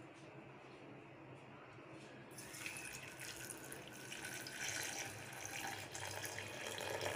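Water poured from a tumbler into a stainless-steel mixer jar holding chikoo pieces and sugar: a steady pouring splash that starts a little over two seconds in.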